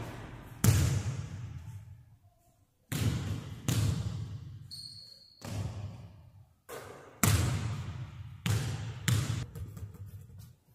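Basketball bouncing on a hardwood court, about eight separate thuds at uneven intervals, each ringing out with a long echo through a large, empty gym.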